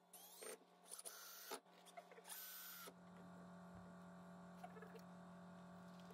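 Ryobi cordless drill running in about three short bursts in the first three seconds, driving screws into the plywood of the engine bed; the first burst rises in pitch as the motor speeds up. After that only a faint steady hum remains.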